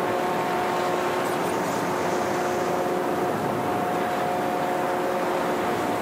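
The 14,000-TEU container ship HMM Gaon passing close by: a steady drone of its engines and onboard machinery, with several held humming tones over an even rumble.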